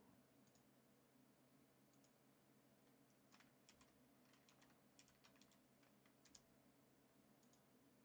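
Faint, scattered clicks of a computer keyboard and mouse, about ten irregular taps over near-silent room tone.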